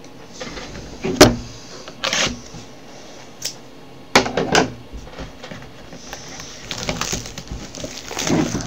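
Cardboard trading-card boxes being handled and set down on a table: a few separate knocks, the sharpest about a second in, then a run of small taps and rustles near the end.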